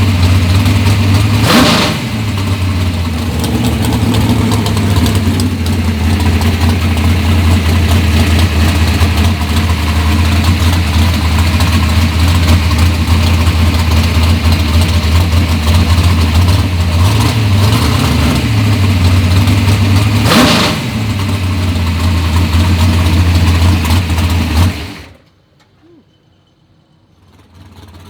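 Wheelstand drag car's engine running steadily and loud, with two brief sharp bursts, about two seconds in and again near twenty seconds in. The sound drops away sharply about twenty-five seconds in and comes back faintly near the end.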